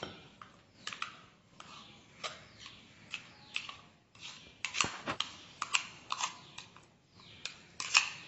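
Metal spoon scraping and knocking against the inside of a stainless steel mixer-grinder jar while scooping thick sauce out into a ceramic bowl: an irregular string of sharp clinks and short scrapes, several a second.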